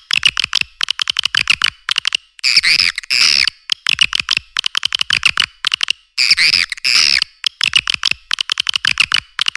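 Swiftlet calls on a lure-call track for a swiftlet house: rapid trains of sharp clicking chirps, broken twice by a longer rasping chatter, first about two and a half seconds in and again after six seconds. The low end is cut away.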